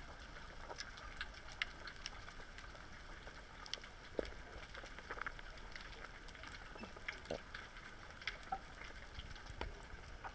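Faint underwater ambience: a steady hiss with scattered small clicks and crackles.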